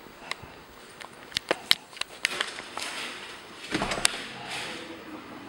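Scattered sharp clicks and light knocks from walking and handling, then, about four seconds in, a dull thump and a short rustle as a door with long metal bar handles is reached and opened.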